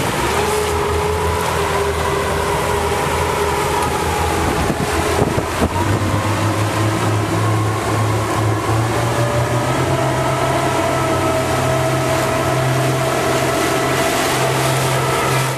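An engine running steadily, its pitch stepping up about six seconds in, with a few knocks around then.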